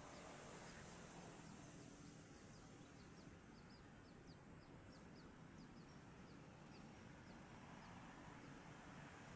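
Near silence: faint outdoor ambience with a small bird's short, high, falling chirps repeated a few times a second.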